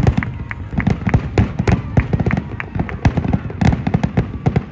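Aerial fireworks display in a dense barrage: many overlapping shell bursts, several bangs a second, with crackling and a low rumble between them.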